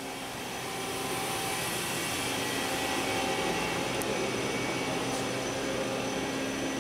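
Steady whirring hum and hiss of a Chip Blaster high-pressure coolant unit running, growing a little louder about a second in.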